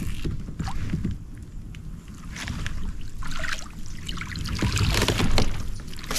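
Water splashing and sloshing against a kayak, with scattered knocks and bumps, over a low irregular rumble.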